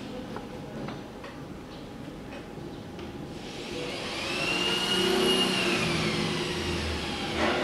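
CNC plasma cutting machine's drive motors running with a steady hum, then from about halfway a motor whine that rises in pitch and falls back again, as when the gantry speeds up and slows down.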